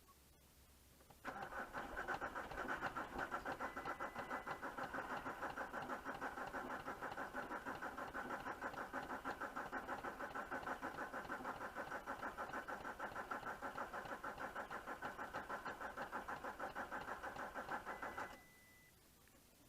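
VW Touareg 2.5 R5 TDI five-cylinder diesel running with a rough, evenly pulsing clatter; the owner blames its bad injectors. It comes in suddenly about a second in and cuts off abruptly near the end.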